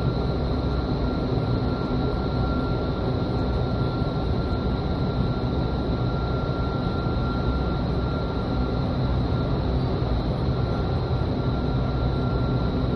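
Vertical wind tunnel running at flying speed: a steady roar of rushing air and fan rumble, with a faint steady whine above it, heard through the glass of the flight chamber.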